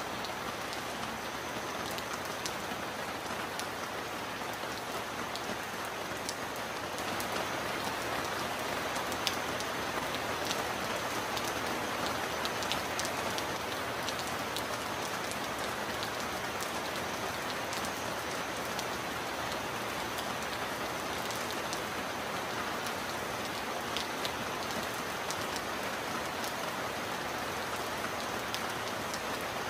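Steady heavy rain with scattered sharp drop ticks, swelling slightly from about seven seconds in.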